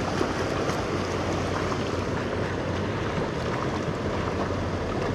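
Steady rush of a shallow, fast-flowing river running over riffles.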